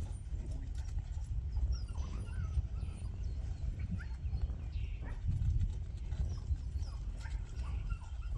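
Wind rumbling on the microphone, with faint, short whines from a keen young working sheepdog pup.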